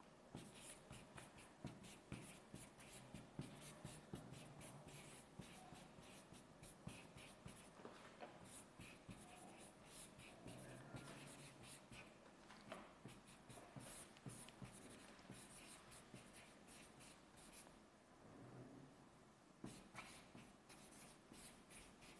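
Faint scratching of writing: many short, quick strokes in irregular runs, thinning out after about sixteen seconds to a few last strokes near the end.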